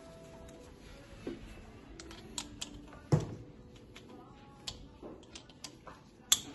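Scattered clicks and light knocks of a compression-tester hose and hand tools being handled on a bare V6 engine, with a sharper knock about three seconds in and another near the end.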